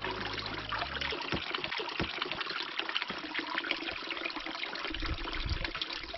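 Water pouring steadily from a metal pipe spout into a hollowed wooden log trough, a continuous splashing trickle, with a few low thumps.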